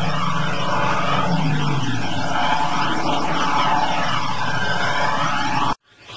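Six-wheeled army truck's engine running as it ploughs through a fast river, over a steady rush of water and spray. The engine note drops about a second and a half in. The sound cuts off abruptly near the end.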